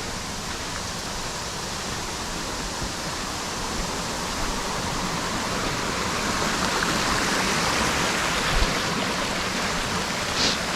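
Steady rushing of flowing stream water, growing gradually louder.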